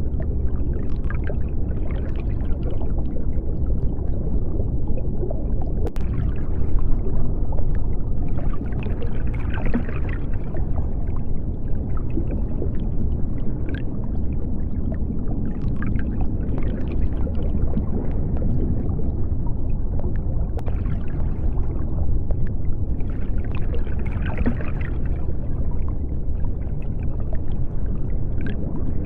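Underwater ambience: a steady deep rumble with scattered small clicks and crackles, swelling into a brighter bubbling wash twice, about ten seconds in and again near the end.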